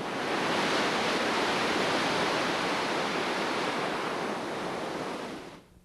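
Whitewater of a river rapid rushing, a steady noise that drops away sharply near the end.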